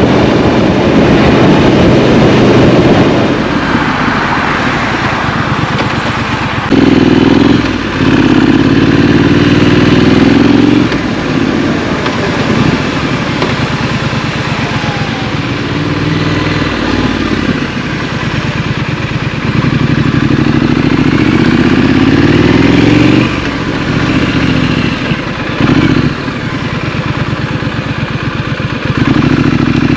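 Triumph Street Scrambler's parallel-twin engine and exhaust under way in city traffic: several louder pulls where the revs climb, broken by short dips at the gear changes, with quieter rolling off the throttle in between.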